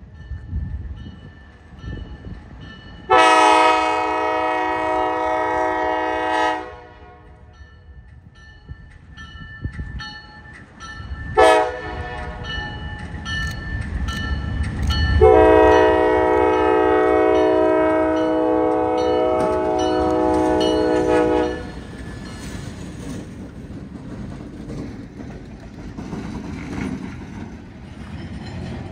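Diesel locomotive air horn sounding for a grade crossing: a long blast, a brief short one, then a longer blast. The locomotives' engine rumble and the clatter of wheels on rail run underneath as they pass.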